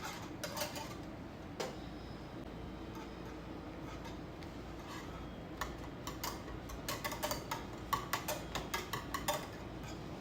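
A utensil stirring cherry-and-starch filling in a pot over low heat as it thickens, knocking and scraping against the pot in light clicks, a few at first and then a quick run of them through the second half, over a steady low hum.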